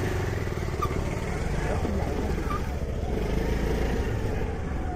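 Motorcycle engine running steadily on the move, with a dense low rumble.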